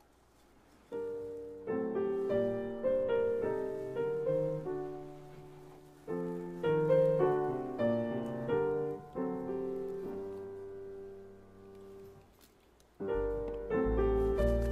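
Solo piano playing slowly, its notes struck and left to ring and fade. It starts about a second in, thins almost to nothing near the end, then comes back with deeper bass notes.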